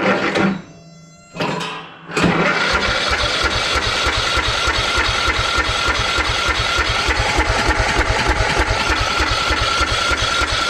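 Riding lawn mower's electric starter cranking the small engine over, with a steady rhythmic chug and a steady whine from about two seconds in, after a couple of short bursts. The engine turns over but does not fire, cranking with the choke off in a crank-but-no-start fault.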